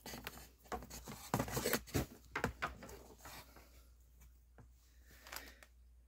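Rubber-jacketed float switch cord being pulled through the hole in a sump pit cover: a quick run of rubbing, scraping and clicking handling noises in the first few seconds, then fainter, with a couple of single ticks near the end.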